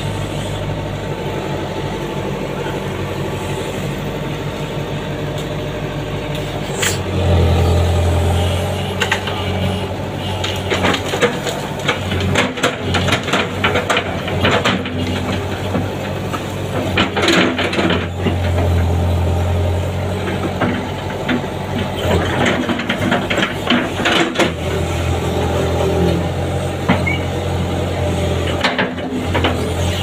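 Hydraulic excavator's diesel engine running, swelling louder three times as the bucket digs and lifts loads of wet mud, with scattered knocks and scraping from the bucket and arm.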